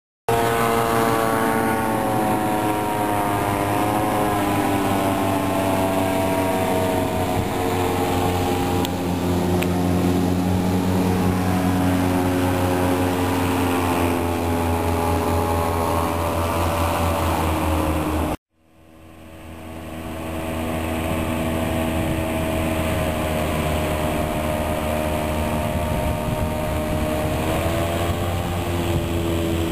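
Hovercraft engines and caged thrust propellers running at speed: a loud, steady drone with several tones that drift up and down in pitch. The sound cuts off abruptly about two-thirds of the way through, then fades back in and runs steadily.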